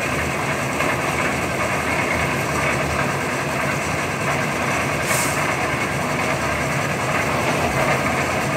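An engine running steadily, with a brief hiss about five seconds in.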